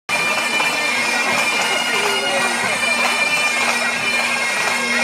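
Highland bagpipes of a pipe band playing, steady drones sounding under the chanter tune.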